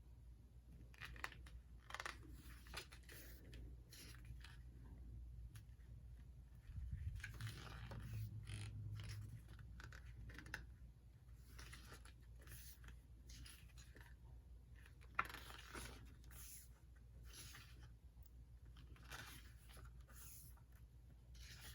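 Faint rustling and light tapping of paper and card as an album's photo booklet is handled and its pages turned, over a steady low hum.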